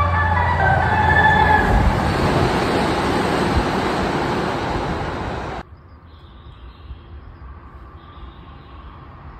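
Tsukuba Express electric train passing at speed: a rising whine, then a loud rush of wheel and air noise that cuts off suddenly about five and a half seconds in, leaving a quieter steady background.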